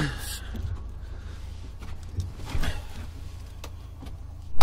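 Knocks and thumps of things being handled inside a truck cab over a low, steady rumble: a knock at the start, two more in the middle, and a loud thump at the end.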